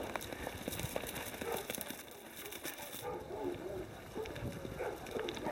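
Horses galloping over grass, irregular hoofbeats.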